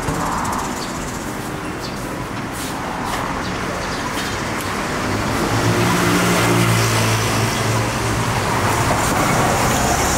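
Road traffic running steadily, with a vehicle engine's low hum growing louder from about five seconds in.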